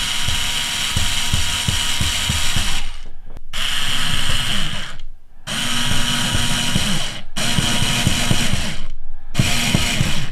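Ryobi cordless driver running in short runs as it screws steel pillow balls into plastic C-hubs: five runs of one to three seconds each, separated by brief pauses.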